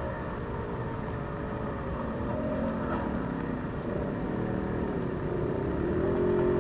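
1976 Bianchi Snark Eagle Deluxe moped's small two-stroke engine running as it rides up, growing louder as it approaches, its pitch rising and falling with the throttle.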